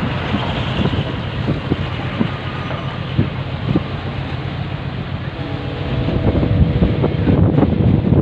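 Steady low rumble of a ferry's engines under way, with wind buffeting the microphone; the wind grows louder about six seconds in.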